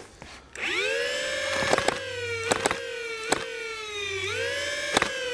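Kraken flywheel motors of a custom solenoid-driven Nerf blaster on a 3S battery spin up with a rising whine about half a second in, then hold a high whine. Sharp clicks of darts being fired come over it in small quick bunches. The whine sags slowly between shots and jumps back up about four seconds in.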